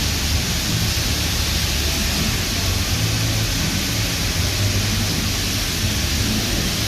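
Stick welding arc crackling and hissing steadily as a 6010/7018 electrode burns, with a low hum underneath.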